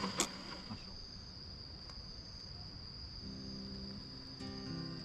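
Crickets chirping steadily in a high, even tone. Soft background music comes in about three seconds in.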